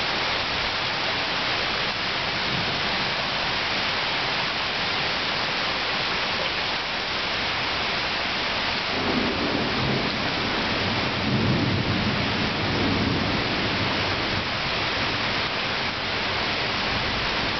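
Heavy rain falling steadily, with a low roll of thunder rumbling from about nine seconds in, loudest a few seconds later, then fading.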